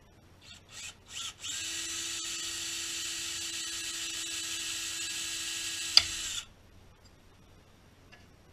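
Cordless drill with a 1/8-inch bit boring ear holes in a small wooden mouse: a few short trigger blips, then a steady whine for about five seconds that stops suddenly, with a sharp click just before it stops.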